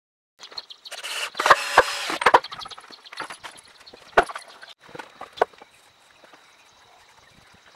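A log section and a wooden plank being handled and set down: rough scraping with several sharp wood-on-wood knocks, then a few single knocks.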